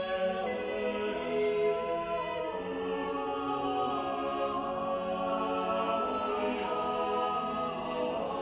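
Background choral music: voices singing slow, sustained chords that shift every second or two.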